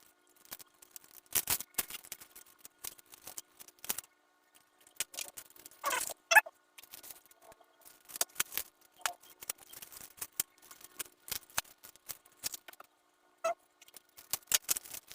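Gift packaging being handled and opened: irregular crackles, snips and clicks of paper or plastic wrapping, with a short voice-like sound about six seconds in and again near the end.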